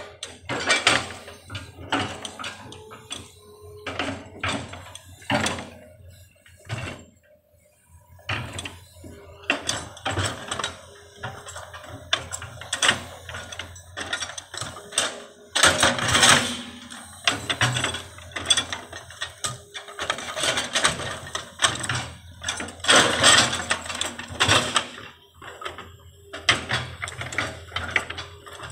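Hydraulic excavator at work shaping soil. Irregular clanks, scrapes and creaks from the bucket and arm come over the steady hum of the engine.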